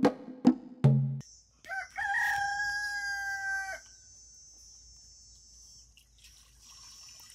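A rooster crowing once, a single long held call about two seconds in, after the last few hits of a wood-block music beat. A steady high hiss continues underneath, with faint sounds of water being poured into a pot near the end.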